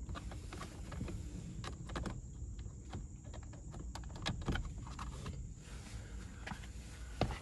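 Scattered light clicks and taps of hands handling things inside a car, over a low rumble, with a slightly louder knock near the end.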